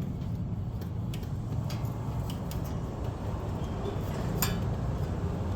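Scattered light metallic clicks and taps as the throttle cable and its linkage on a Cub Cadet riding tractor are being reset, with one sharper click about four and a half seconds in, over a steady low background rumble.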